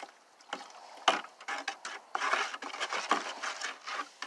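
Soda ash being stirred into water in a plastic five-gallon bucket: a utensil scrapes, clicks and knocks against the bucket, with one sharp knock about a second in.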